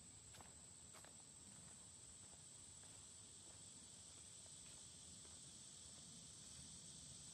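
Faint, steady high-pitched insect chorus in summer woods, swelling a little about five seconds in, with a few soft footsteps on the trail in the first second.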